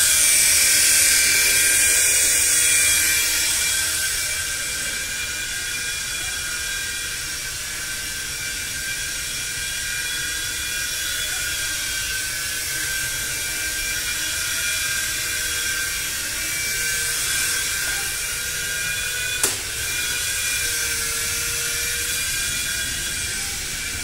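Small electric motors of a WLtoys V911 fixed-pitch RC helicopter whining steadily, with the hum of its spinning rotor. The whine is loudest for the first few seconds, then a little quieter, with a single sharp click about three quarters of the way through.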